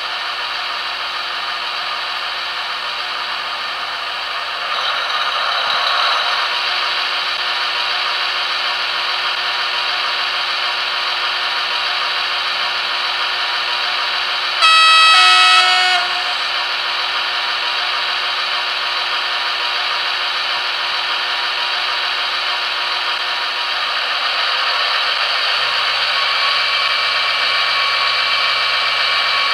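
Factory-fitted ESU 3.5 sound decoder of a Roco H0 TEE RAm diesel railcar model playing its diesel engine sound through the model's small speaker. About halfway a two-tone horn sounds for about a second and a half, the loudest thing heard. Near the end a low steady hum joins the engine sound.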